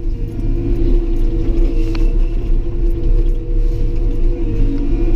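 Caterpillar D5 bulldozer's diesel engine running steadily as the machine drives, heard from inside the cab, with a deep rumble and a steady hum. A single sharp click about two seconds in.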